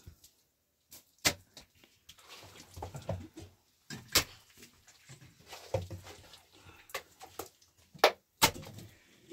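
A string of sharp knocks and clicks with soft rustling handling noise between them, the loudest two close together near the end.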